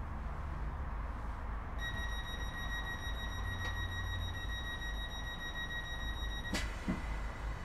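Interior of a Class 313 electric multiple unit: a steady low rumble, joined about two seconds in by a high steady tone, with a sharp clunk near the end.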